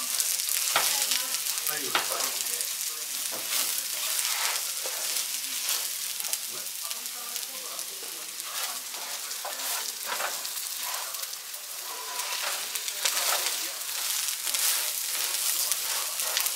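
Rice and chopped onion sizzling in hot oil in a wide pan, with a spatula scraping and stirring through them in repeated strokes: the rice being sautéed until translucent, the first stage of a paella.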